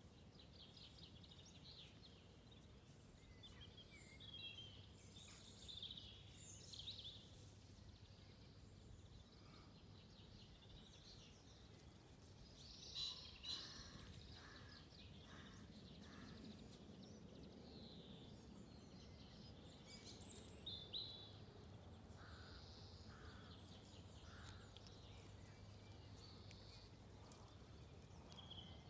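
Faint birdsong: scattered short chirps and phrases, a little louder about halfway through, over a low steady background hum.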